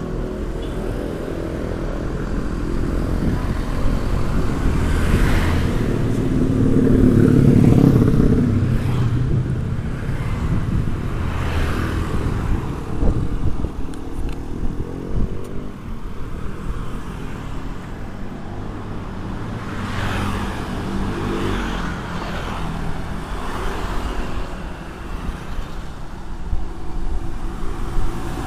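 Road traffic: motor vehicles passing close by, their engine sound swelling and fading as each goes past. The loudest pass is about seven seconds in.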